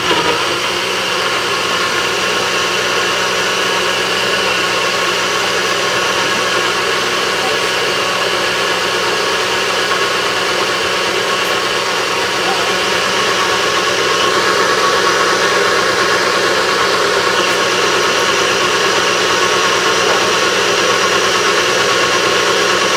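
NutriBullet personal blender motor running steadily, pureeing whole strawberries into a smooth liquid.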